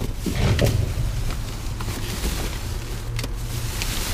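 Plastic trash bags and loose rubbish rustling and crinkling as gloved hands dig through a dumpster, with a steady low rumble underneath.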